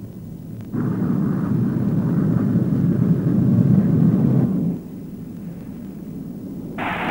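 Jet bomber engines droning overhead, B-52s, as a steady rumble. It swells about a second in and drops back to a low rumble after about four and a half seconds. A much louder burst of noise starts right at the end.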